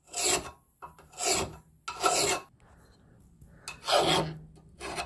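Flat hand file rasping along the cutting edge of a steel lawn mower blade to sharpen it: five scraping strokes, three about a second apart, then a pause of over a second before two more.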